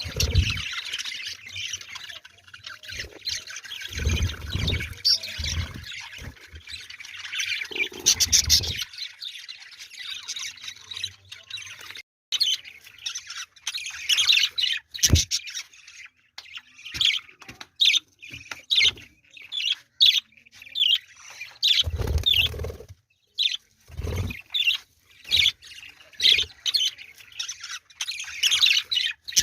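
Budgerigars chirping and chattering, a run of many short high calls with pauses, and a few dull low bumps now and then.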